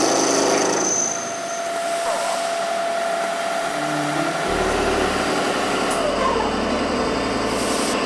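Pipe drilling machine running, its drilling units making a steady mechanical noise with a faint whine; a deeper hum joins about halfway through.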